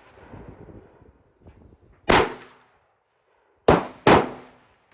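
Three handgun shots with ringing tails: one about two seconds in, then two in quick succession near the end.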